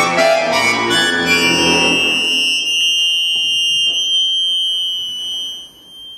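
Accordion playing a loud, dense chord of many reeds at once. After about two seconds it thins to a single high held tone in the treble, which fades away near the end.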